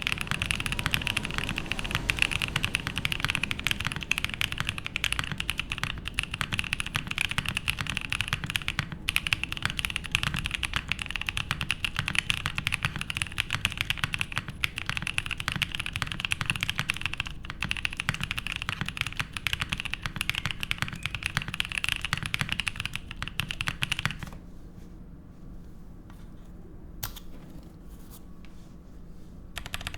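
Typing on a MONOKEI x TGR Tomo mechanical keyboard with lubed Boba U4T tactile switches on a polycarbonate plate: fast, continuous keystrokes that break off about four-fifths of the way through, leaving only a few scattered key presses before typing resumes near the end.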